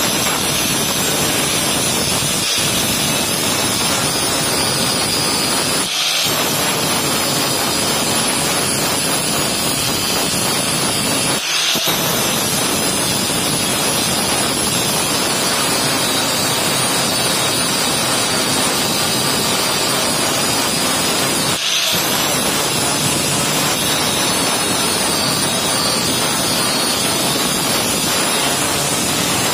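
Electric angle grinder with an abrasive disc grinding a weld bead flush on thin steel tube, a steady loud grinding hiss over the motor's high whine. It breaks off for a moment three times.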